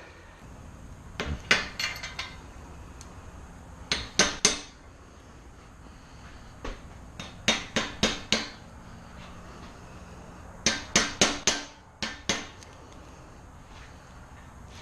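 Hammer striking metal in short bunches of two to five quick blows, repeated several times with pauses between.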